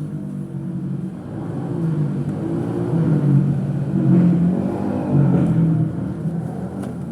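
An engine running, with a steady low hum that grows louder towards the middle and eases off near the end.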